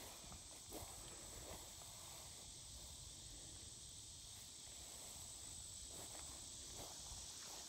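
Faint, steady high-pitched insect chorus, with a few soft footsteps on grass.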